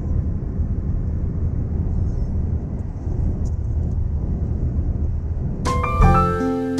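Steady low rumble of road and tyre noise inside a moving car's cabin at highway speed. Near the end, bright music with clear notes comes in.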